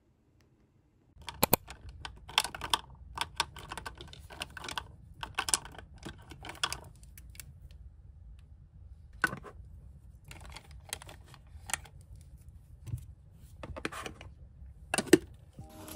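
Small cosmetics, plastic and glass, being picked up and set down among clear acrylic makeup organizers: an irregular run of light clicks and clatters, starting about a second in.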